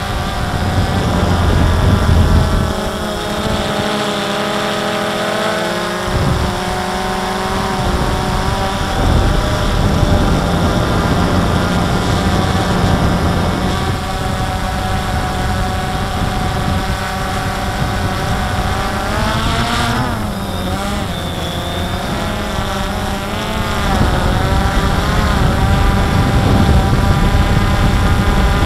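DJI Phantom 2 quadcopter's four motors and propellers whirring steadily as heard from its onboard camera, several tones drifting and wavering in pitch as the motors speed up and slow down to hold and turn the drone.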